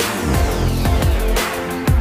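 Electronic dance backing music with a heavy bass line and a steady drum beat, a hard drum hit near the end.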